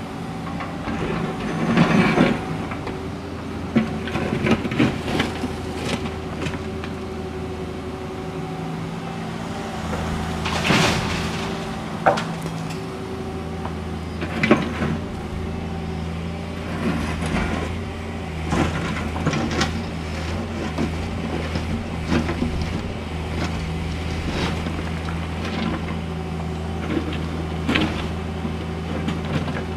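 Cat 305.5E2 mini excavator's diesel engine running steadily under the work, with scraping and clattering of broken asphalt slabs as the bucket dumps them into a dump truck and digs out more. Loud crashes of asphalt chunks come about two seconds in and again near the middle, with smaller knocks and scrapes in between.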